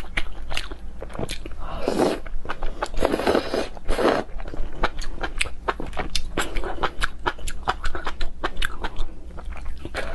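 Close-miked eating: chewing and crunching with many sharp wet mouth clicks, and longer noisy sucking stretches about two and three to four seconds in, as noodles are slurped. Near the end a bite into a crisp slice of lotus root.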